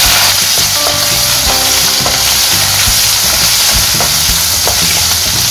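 Green chillies, ginger and garlic sizzling steadily in hot coconut oil in a non-stick kadai, stirred with a spatula that knocks against the pan now and then.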